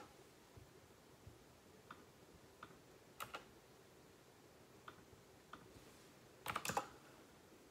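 Faint computer keyboard keystrokes: a few scattered single taps, then a quick run of several keys about six and a half seconds in.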